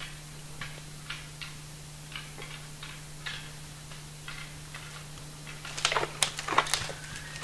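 Scattered faint ticks and cracks of dry twigs and brush, turning into a cluster of louder, sharper snaps about six seconds in, over a steady low hum.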